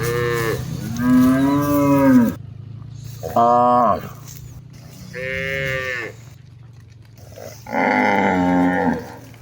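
Cattle mooing repeatedly: about five separate calls, some short and some drawn out, each rising and then falling in pitch.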